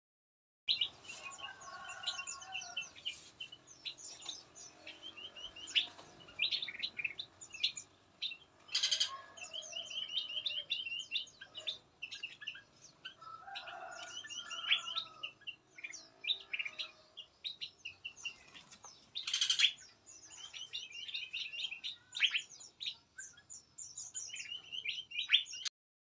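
Many songbirds of mixed species chirping and calling at once: a dense, overlapping run of quick high chirps, with lower calls now and then and two brief, louder sharp sounds.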